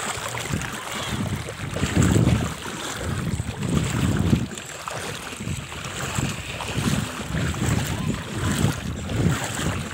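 Wind buffeting the microphone, coming in uneven low rumbling gusts over a steady hiss.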